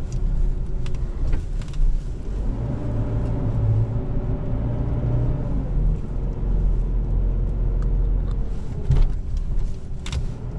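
A 4WD driving slowly over a rutted sandy bush track, heard from inside the cabin: a steady low engine and road rumble, the engine note rising and falling, with a couple of sharp knocks.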